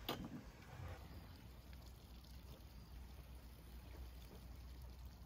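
Quiet outdoor ambience: a faint, steady low rumble, with one short sharp click at the very start.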